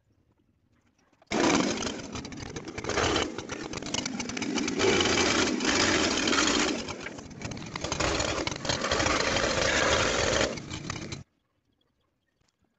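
A small petrol engine, the kind on a chainsaw, running loudly for about ten seconds with a rising and falling level. It starts abruptly about a second in and cuts off suddenly near the end.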